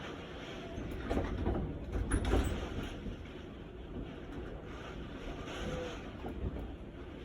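Typhoon wind gusting, with a low rumble of buffeting on the microphone that swells strongest about two seconds in and again near the end.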